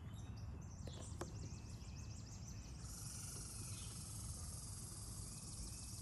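Quiet outdoor garden ambience: faint repeated high chirps at first, then about three seconds in a steady high-pitched insect buzz starts and holds. Two faint clicks about a second in.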